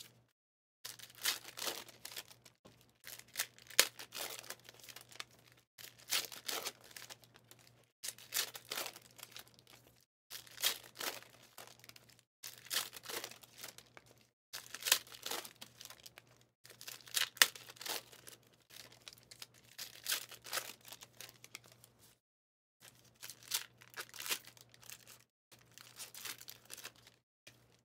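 Foil trading-card packs being torn open one after another, the wrappers ripping and crinkling in short bursts about every two seconds.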